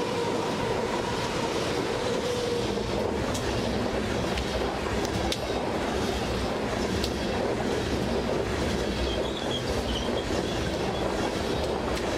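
Electric locomotives passing close with a steady whine that fades out about two seconds in, then coal hopper cars rolling by. Their wheels make a loud, steady rumble on the rail with scattered clicks and clacks, and a faint wheel squeal comes about nine seconds in.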